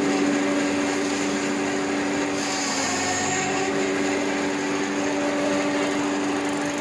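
Silage-making machine running steadily while chopping green fodder, its blower throwing the cut material out through the discharge spout: a constant mechanical hum with a whirring rush.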